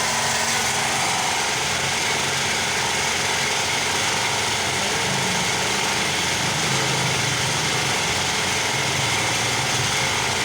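Steady, unchanging mechanical drone with an even hiss, like a running motor or engine.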